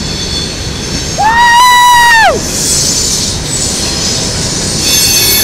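Freight trains rolling past a grade crossing: the steady rumble and rattle of coal hopper cars passing close by. About a second in, a loud high-pitched squeal lasts about a second and then drops away.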